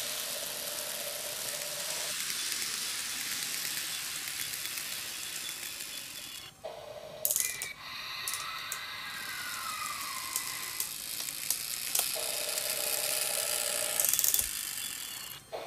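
N-gauge Micro Ace E231-1000 model train running on the track: a rattling clatter of wheels and motor, with a steady electric whine from its drive that is meant to mimic a VVVF inverter, and a tone that rises and falls about halfway through. Scattered clicks, and two brief drop-outs.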